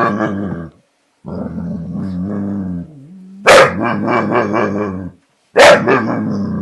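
American bulldog making long, drawn-out growling moans. Two sharp barks come about three and a half and five and a half seconds in, each running on into a long growl. It is his fearful fussing over a bottle the border collie has taken.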